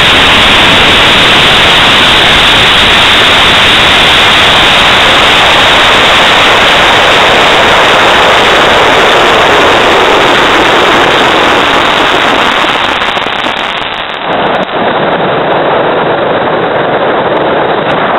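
High-power rocket on a K400 motor lifting off: a continuous rushing roar of motor burn and airflow, so loud it overloads the recording. It thins and changes character about 13 to 14 seconds in.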